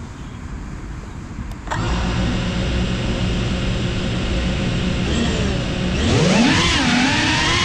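FPV quadcopter's brushless motors starting up suddenly about two seconds in and spinning at idle with a steady whining hum. Near the end they rev up with a sharply rising, then wavering whine as the throttle is raised for takeoff.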